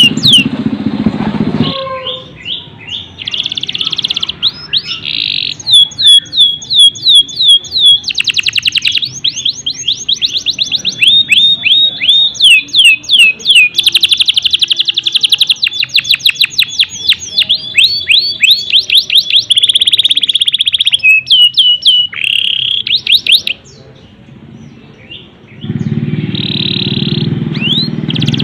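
Domestic canary singing a long, loud song of rapid trills and runs of repeated whistled notes that sweep downward, breaking off near the end.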